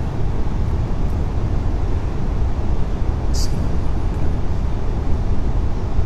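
Steady low rumble of background noise in a large prayer hall during a silent part of the prayer, with a brief high hiss about three and a half seconds in.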